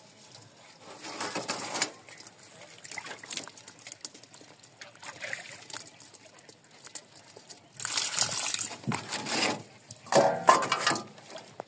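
River water sloshing and splashing in several rushes, the loudest late on, as a net fish trap is handled in the water.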